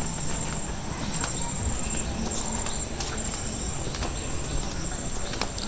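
Insects droning steadily at a high pitch, with a few faint clicks over an outdoor hum.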